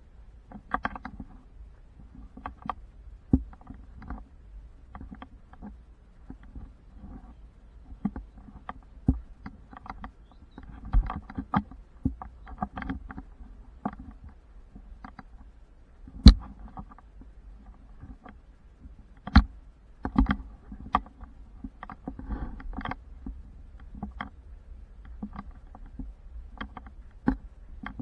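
Camera handling noise while it is carried along: irregular knocks, clicks and rubbing, with a few much louder bumps about halfway through, over a low rumble.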